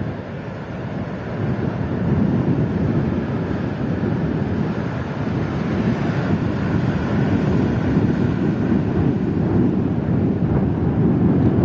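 Wind rumbling and buffeting on the microphone, a steady low roar that flickers fast and swells slightly about two seconds in.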